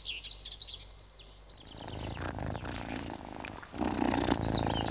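A few short high bird chirps, then a cat purring steadily from about two seconds in. A brief soft hiss comes near the end.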